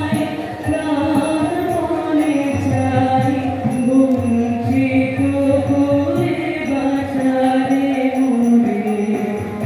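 Live Indian ensemble music: voices singing a slow melody over sustained harmonium tones, with tabla underneath and small manjira hand cymbals ringing in time.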